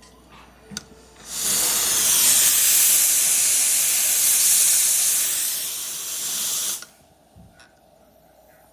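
Espresso machine's steam wand blowing steam: a loud, steady hiss that starts suddenly about a second in, eases slightly near its end and cuts off abruptly after about five and a half seconds, with a short click just before it.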